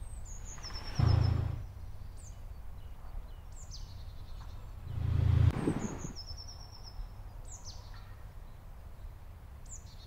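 Birds calling in the open, with short high chirps and quick downward-sliding notes every second or two. Two brief low rumbles come about a second in and again about five seconds in.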